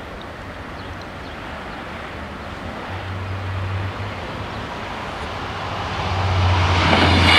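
A Stadler GTW diesel railcar approaching, its engine hum and rolling noise growing steadily louder. A high ringing tone joins in near the end as the train nears.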